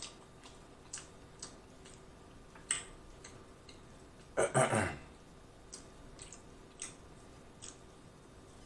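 Wet mouth clicks and smacks from eating chicken wings: chewing, and sucking sauce off the bone and fingers, spaced irregularly. One louder knock and rustle comes about halfway through as a wing is picked up from the tray.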